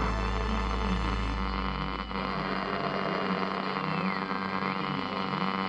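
Electronic buzzing hum with static. A deep low hum fades out about two seconds in, and a thin high tone dips in pitch and climbs back about four seconds in.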